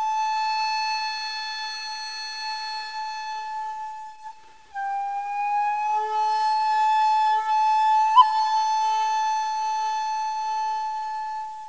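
Background music: a solo flute holding long notes. The first note fades out about four and a half seconds in; the next starts a little lower and slides slowly up to the same pitch, then fades near the end.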